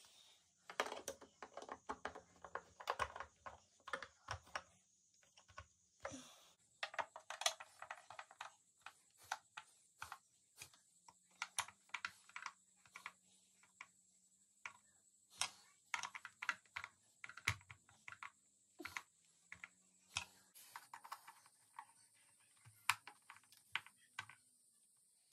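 Screws being turned in by hand with a screwdriver through the metal mounting plates of a wooden stool frame: a long run of small, irregular clicks and ticks in quick clusters.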